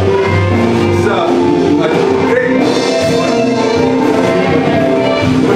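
Loud music with long held notes.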